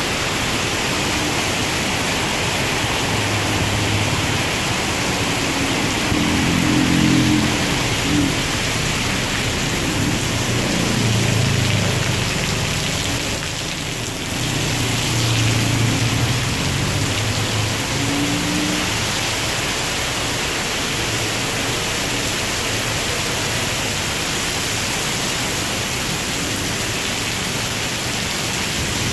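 Torrential rain pouring steadily onto the street and pavement, a dense, even hiss. Passing road traffic sounds low underneath at times during the first two-thirds.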